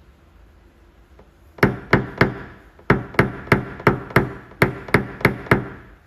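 Paintless dent repair tapping on a car door panel: a hammer and knockdown tool strike about twelve sharp, light taps, roughly three a second in groups of three, starting about a second and a half in.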